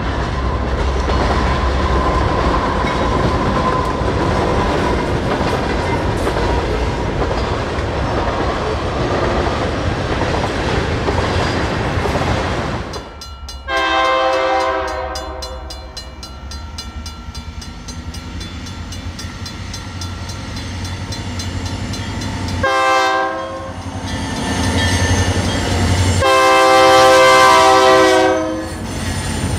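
BNSF diesel freight train running past, with rumbling wheel and rail noise over the locomotive's low engine hum. After a sudden break about halfway through, a locomotive air horn sounds a multi-tone blast of a couple of seconds, a short toot, then another long blast near the end, over the engine running.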